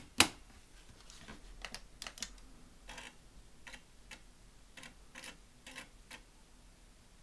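Light, irregular clicking from an Amiga 500 setup: the mouse button being clicked and the Chinon floppy drive seeking as it reads a disk. One sharper click comes just after the start.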